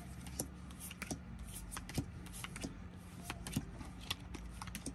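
Round Dobble picture cards being handled and dealt onto a tabletop: light, irregular clicks and taps, over a steady low hum.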